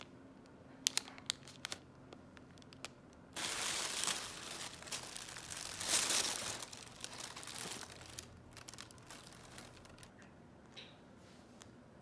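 Brown tissue paper crumpling and wood-wool packing straw rustling as a wrapped item is pulled out of a cardboard box. The rustling is loud and dense for about four seconds in the middle, with lighter crinkles of a plastic packet being handled at the start and fainter rustles near the end.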